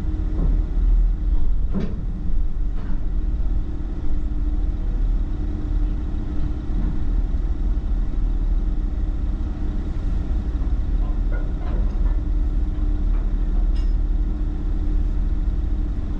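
Engine running with a steady low rumble and a held hum, with a few short knocks and clicks on top, the loudest about two seconds in.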